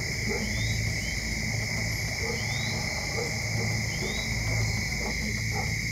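Outdoor insect chorus: a steady, high, continuous trilling of crickets or similar insects, with short rising chirps every second or so and a low uneven rumble underneath.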